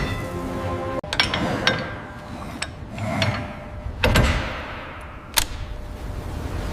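Metalwork clanking: a run of sharp metal knocks and clangs, the loudest about four seconds in, over a steady low mechanical rumble.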